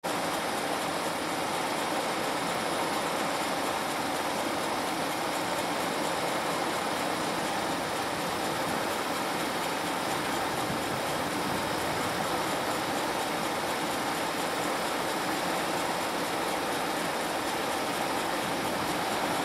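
Several diesel freight locomotives running as they approach at low speed, giving a steady, even noise with no horn or bell.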